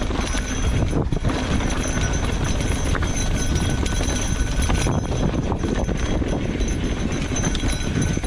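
Mountain bike going down a steep, rough trail: a continuous clatter of the bike and its tyres over rocks and dirt, full of small knocks, over a low rumble.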